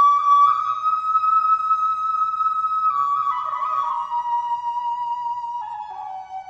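Background music: a solo flute playing slow, long-held notes that step down in pitch in the second half.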